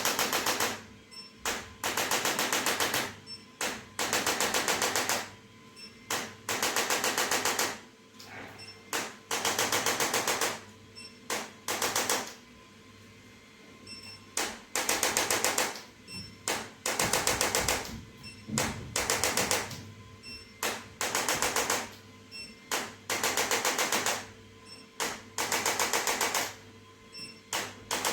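Handheld electric percussion device, such as a massage gun or an electric adjusting instrument, tapping rapidly in repeated bursts of about a second each, with short pauses between.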